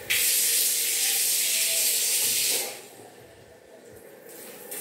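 Shower water spraying in a tiled shower stall: a loud hiss that starts abruptly, cuts off after about two and a half seconds, and comes back more quietly near the end.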